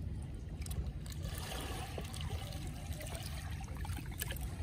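Seawater trickling and lapping among shoreline rocks, over a steady low rumble, with scattered small clicks.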